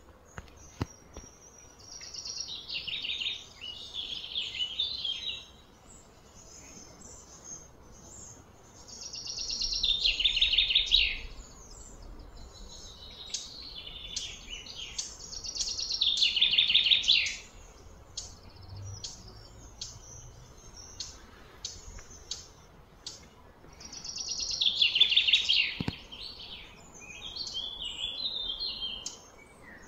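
Bird song: four loud, falling, trilled phrases of two to three seconds each, with softer chirps between them.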